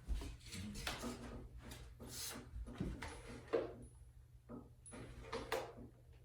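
Irregular knocks, clicks and scrapes from tools and parts being handled, over a faint steady hum.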